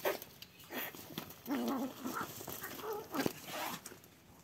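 Domestic cats calling to each other with three short meows about a second apart, the last one higher-pitched, with a few faint clicks between them.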